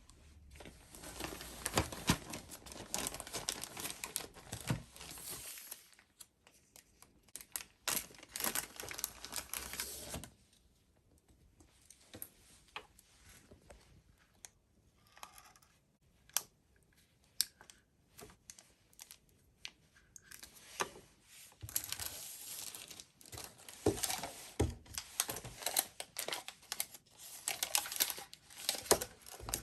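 Dry rustling and crinkling handling noise with many small clicks, in three stretches with quieter ticking between them.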